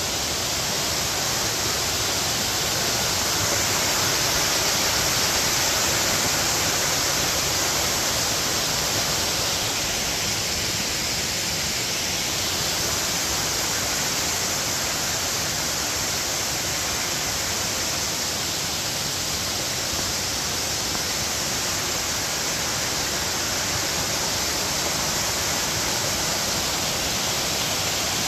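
Steady rushing of a nearby waterfall, an even hiss of falling water.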